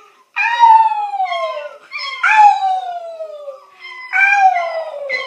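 A puppy howling: three long howls, each sliding down in pitch.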